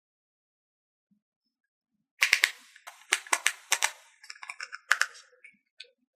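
Hard plastic toy pieces clicking and clacking together as they are handled: a quick run of sharp, irregular clicks starting about two seconds in and thinning out near the end.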